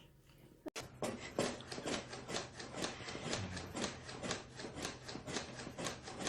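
A run of rhythmic rasping scratches, about three strokes a second, like something being scratched or scraped repeatedly across a rough surface. It starts suddenly just under a second in.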